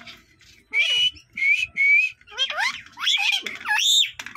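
A parakeet whistles a few short, clear notes, then gives a run of quick rising-and-falling calls over the last two seconds.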